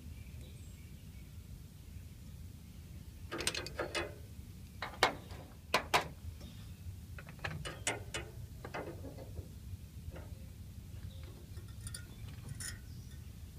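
Irregular clusters of short, sharp metallic clicks and clacks from hand work on copper refrigerant tubing as a replacement liquid-line filter drier is fitted, over a steady low background rumble.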